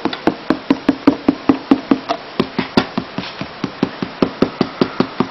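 Rapid, even tapping on the card that holds iron filings around a current-carrying wire ring, about six taps a second. The tapping jostles the filings so they settle into circles around the wire, tracing its magnetic field.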